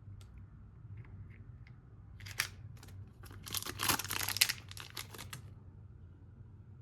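A few light clicks, then about three seconds of rustling and scraping, loudest in the middle, as objects are handled.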